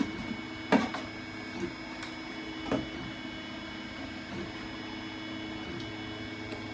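A steady machine hum with several fixed pitches, and a few short knocks in the first three seconds as Styrodur foam-board pieces are handled and set down on the layout.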